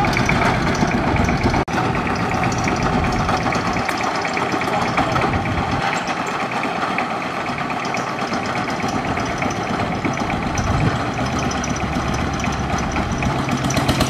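Long-tail boat engine running steadily, driving the propeller on its long shaft.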